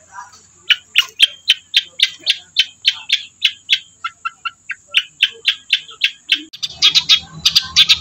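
Long-tailed shrike (cendet) calling: a fast run of short, sharp chattering notes, about four a second, starting after a brief pause and growing denser and louder near the end.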